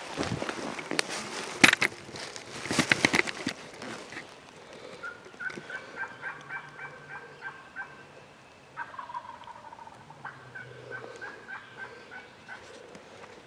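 Footsteps and rustling with a few sharp cracks, then two runs of evenly spaced turkey yelps, about four notes a second, with a single falling note between them.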